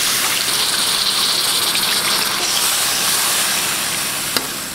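Tamarind water poured into a hot pan of brinjal and spice masala frying in oil, hissing and sizzling as it hits, then dying down toward the end; a spoon knocks against the pan once near the end.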